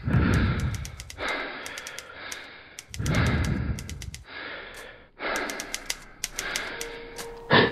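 Heavy breathing voiced for a gorilla puppet: about six loud, ragged breaths in and out, each lasting about a second, with faint clicks over them. Near the end a steady hum tone sets in, followed by a thud.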